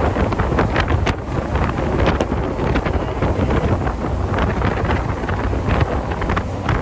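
Heavy wind buffeting the microphone on a jet boat at speed, over a steady low rush of the boat and water.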